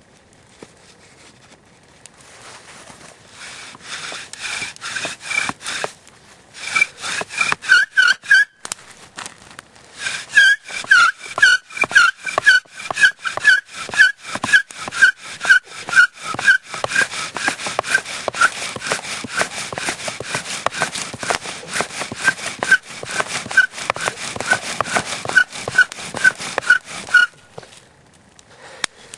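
Bow drill: the wooden spindle is spun back and forth by the bow against the hearth board, rubbing and squeaking on every stroke at about two strokes a second. The strokes start a couple of seconds in, break off briefly twice, and stop shortly before the end.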